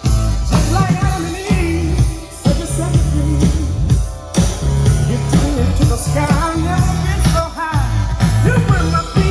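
A funk song with singing and a heavy, pulsing bass beat, played loud through a Sony LBT-XB44 mini hi-fi system driving its own speakers and SS-XB6V speakers wired in series.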